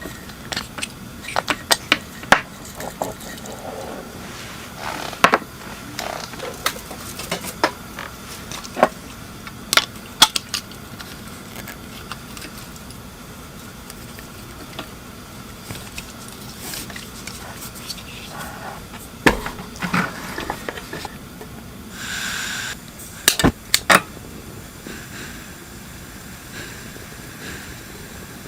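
Metal cookware and utensils clinking and knocking in irregular sharp taps during camp cooking, over a steady low background hum. About 22 seconds in there is a brief hiss-like scrape.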